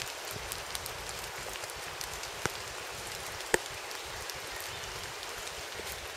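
Rain falling steadily, an even hiss with many small drops pattering, and two louder single drips about two and a half and three and a half seconds in.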